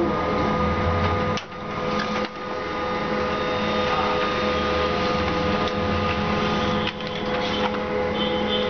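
A small electric machine running steadily with a hum and a fixed whine, briefly dropping off about three times.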